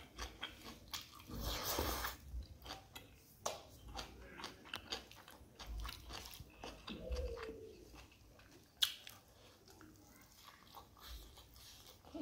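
A person eating by hand close to the microphone: faint chewing and biting with soft mouth clicks and smacks, and fingers working through rice on the plate. There is one sharper click about nine seconds in.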